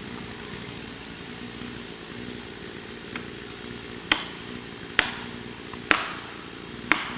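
Felling wedges being hammered into the cut of a tree: a faint knock, then four sharp ringing strikes about a second apart, driving the wedges to tip the tree over. A small engine idles steadily underneath.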